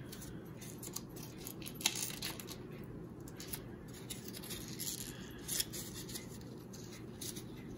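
Thin printed paper crinkling and rustling in the fingers in scattered short crackles as it is folded and scrunched around a small plastic figure, over a steady low background hum.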